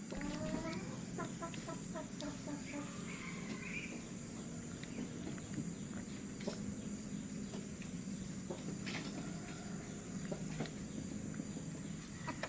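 Chickens clucking, a quick run of short calls in the first second or so and another call a few seconds in, over a steady low hum with a few sharp clicks later on.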